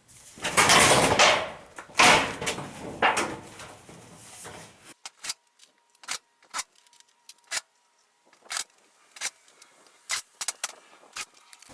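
Wall insulation being pushed back into the cavity, rustling and scraping in several loud swishes over the first five seconds. After that come scattered light clicks and knocks.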